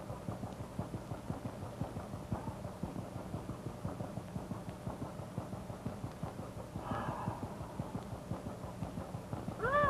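Low, steady, rapid throbbing of a fishing boat's engine running under way, heard under the crackle of an old film soundtrack. A short vocal sound with a rising and falling pitch comes right at the end.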